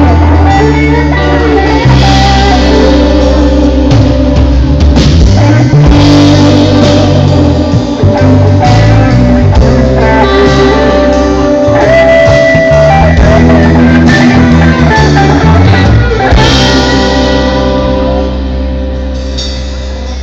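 A live band playing a worship song, with guitar and drum kit, loud throughout.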